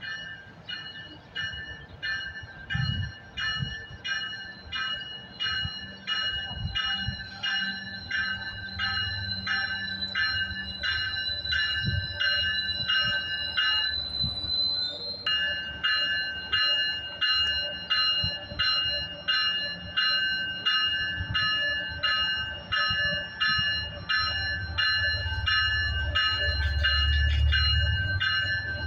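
A train's bell ringing in an even, rapid rhythm, growing louder as the train approaches, with the train's low rumble building near the end.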